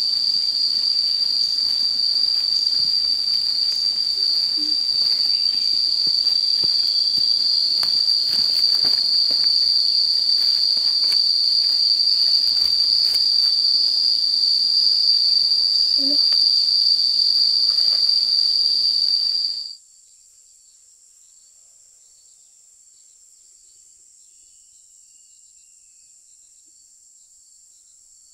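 A steady, high-pitched insect chorus, with faint crackles of footsteps through it. About two-thirds of the way in it cuts off suddenly, leaving a much fainter, higher insect tone.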